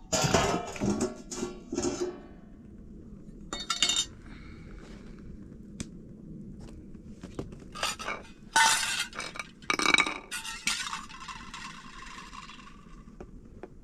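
Dishes and kitchen utensils clinking and knocking together in several short bursts, the loudest cluster near the end with a brief ringing afterwards.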